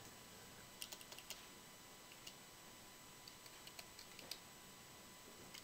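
Faint computer keyboard typing: a few scattered keystrokes in short clusters as a short word is typed in.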